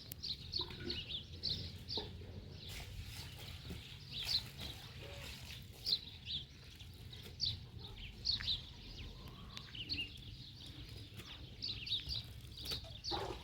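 Small birds chirping: many short, high notes, some falling in pitch, scattered throughout over a low steady rumble.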